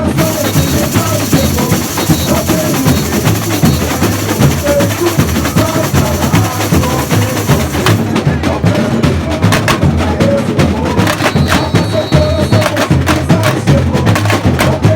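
Samba school bateria playing a fast samba beat: a steady pulse of deep bass drums under dense, quick drum strokes.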